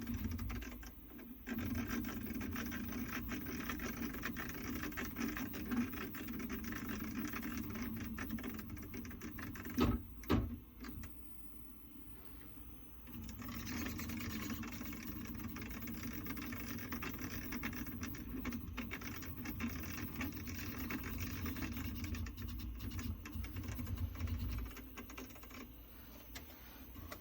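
Prusa MK3S 3D printer running, its X axis moving with a rapid clicking over the steady hum of the motors: the abnormal X-axis clicking noise. About ten seconds in come two sharp knocks half a second apart, then a quieter stretch of a few seconds before the running picks up again.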